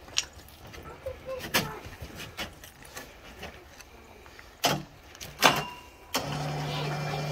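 Sharp knocks and clanks from handling the log rigging on the truck bed, the loudest a pair about five seconds in. About six seconds in, a steady motor hum starts and runs for about a second and a half.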